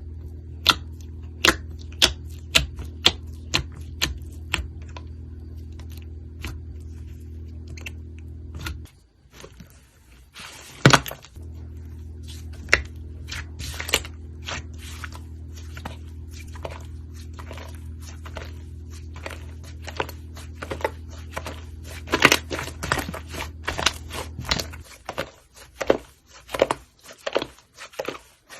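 Slime being squeezed and poked by hand, making a string of crisp clicks and pops: a quick regular run at first, one loud pop about eleven seconds in, and a dense flurry near the end. A steady low hum runs underneath and drops out twice.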